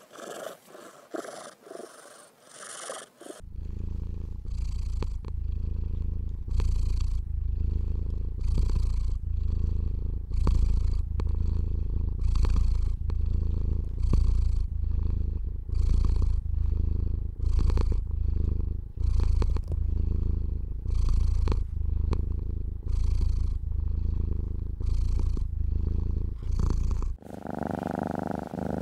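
Domestic cat purring close to the microphone, loud and deep, pulsing with its in-and-out breaths a little more than once a second. The loud purring starts a few seconds in after a quieter, faster pulsing purr, and gives way to a steady hum about a second before the end.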